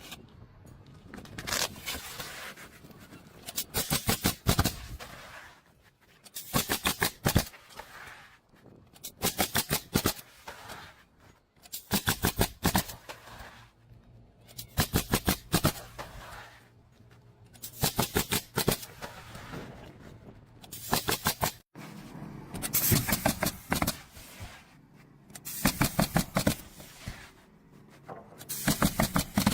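Pneumatic roofing nail gun firing in quick bursts of several shots, a burst about every two to three seconds.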